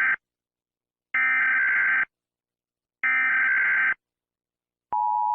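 Emergency Alert System SAME header: one-second bursts of screeching digital data tones, the tail of one at the start and two more a second apart. Near the end the steady two-tone EAS attention signal begins.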